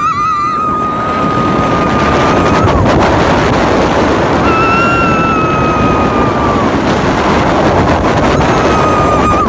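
Wind rushing hard over a phone's microphone on a moving roller coaster, with riders' long held screams: one lasting about three seconds at the start, another around the middle, and a third starting near the end.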